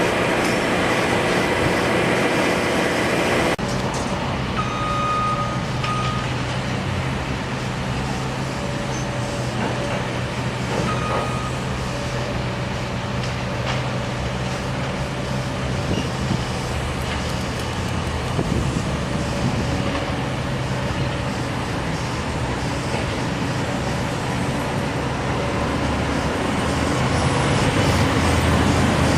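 Heavy truck or construction-machine engine running steadily, with a couple of short beeps like a reversing alarm.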